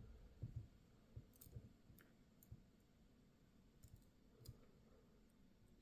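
Faint, scattered small metal clicks of lock pins and a pick against a Goal P lock core as the pins are rolled out one by one.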